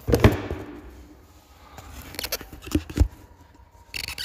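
Handling noise from the recording phone being positioned on its mount: knocks and rubbing right against the microphone, with sharp bumps at the start and again twice around two to three seconds in.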